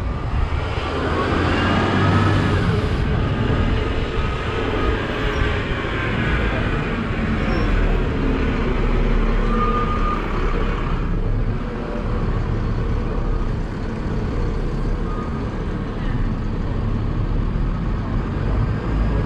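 Open-top double-decker bus driving through a village street, its engine running steadily with road noise, heard from the open top deck.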